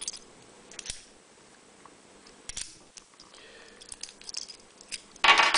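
SecuPlus disc detainer padlock being worked with its key: scattered small metallic clicks and faint scraping, then a loud metallic clack near the end.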